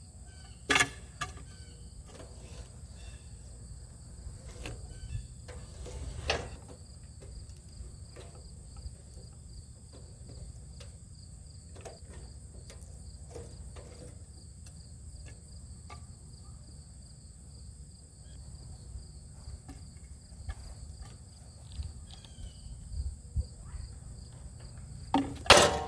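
Insects chirring steadily outdoors over a low rumble, with scattered knocks and clunks as the log is worked; a louder clatter comes near the end.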